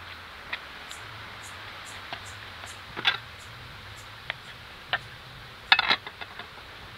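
A kitchen knife cutting through a roll of dough and knocking against a wooden board: scattered sharp knocks and taps, the loudest a quick cluster of knocks near the end.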